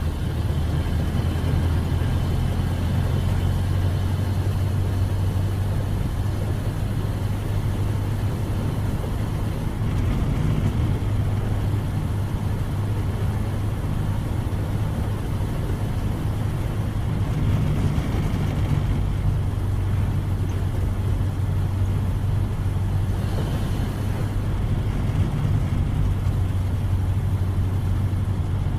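1931 Ford Model A's four-cylinder flathead engine running steadily while the car is driven, a low even hum under road noise.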